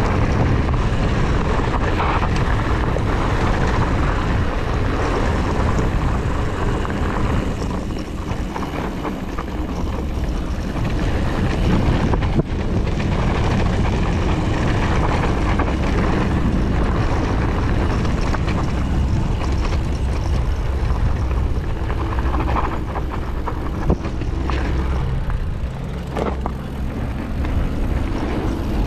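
Mountain bike descending a gravel trail: wind rumbling on the microphone over the crunch of tyres on gravel and the rattle of the bike, with a couple of sharp knocks from bumps, about halfway through and near the end.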